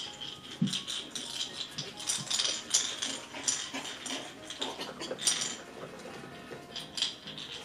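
Light, irregular clinking and rattling as a litter of poodle puppies plays among toys, over soft background music.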